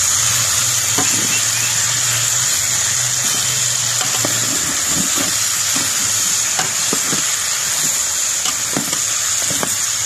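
Small game birds frying in oil in a metal pan, sizzling steadily: the browning stage, after the birds' own water has cooked off. A slotted metal spoon stirs and turns them, clicking and scraping against the pan at irregular moments.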